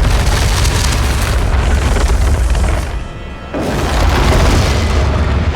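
The Balrog's deep, booming roar from the film, heard in two long stretches with a short lull about three seconds in, under music. The roar was made by dragging a concrete block across a wooden floor, layered with horse and donkey sounds.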